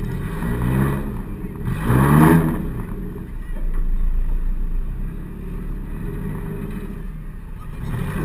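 Four-cylinder demolition derby car's engine revving up and down repeatedly, heard from inside the car, with the loudest surge about two seconds in.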